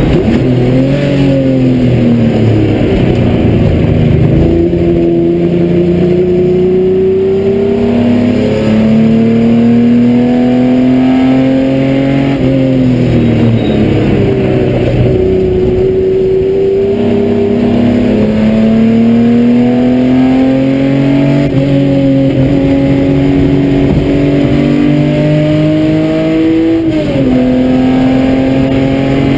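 Nissan 260Z racecar's straight-six engine pulling hard under load, heard from inside the cockpit; its pitch climbs steadily through each gear, then falls sharply at gear changes and lifts about five times.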